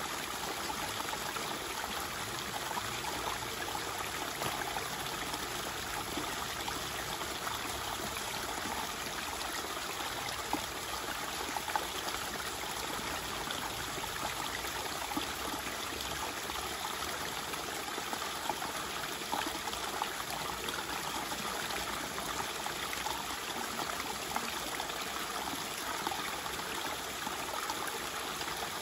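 Shallow river water running steadily, with splashing and sloshing as a sluice box's mat and riffle tray are rinsed out into a gold pan. A few brief sharper sounds stand out over the water.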